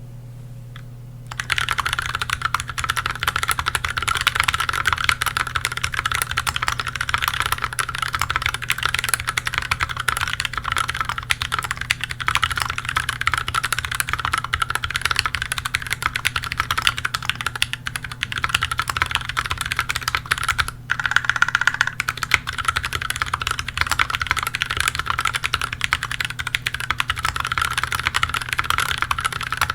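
Fast, continuous typing on a KBDFans Tofu HHKB mechanical keyboard with lubed Gateron Milky Brown tactile switches, an integrated aluminium plate, GMK keycaps and foam under the PCB. The keystrokes begin about a second in and run as a dense, steady clatter.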